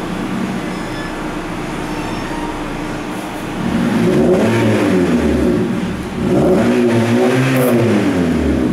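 Honda Civic's four-cylinder engine idling through a tuned exhaust system, then revved twice, each rev rising in pitch and falling back to idle.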